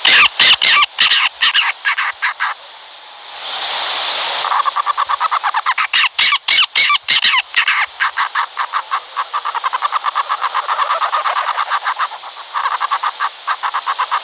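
Barn owl calling: a fast train of rasping, clicking pulses, with a breathy hiss about three to four seconds in.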